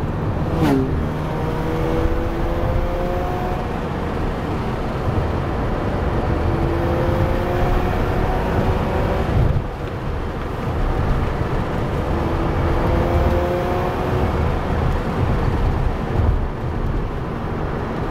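Mazda RX-8's twin-rotor Renesis rotary engine accelerating on a stock muffler, its note climbing in three long rising pulls with a drop in pitch between each as it shifts up.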